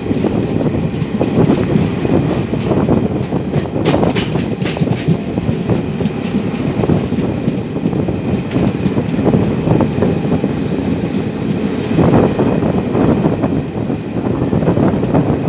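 Express passenger train running at speed, its wheels clattering over rail joints amid a steady, dense rumble, with a cluster of sharper clacks about four to five seconds in.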